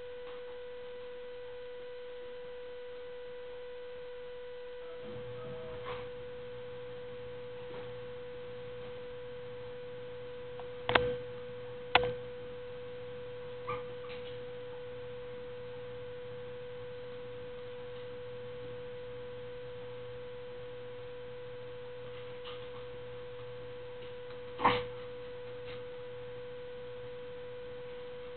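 A steady high-pitched hum with evenly spaced overtones, holding at one level. A lower hum joins about five seconds in, and a few short sharp clicks break in, the loudest about eleven, twelve and twenty-five seconds in.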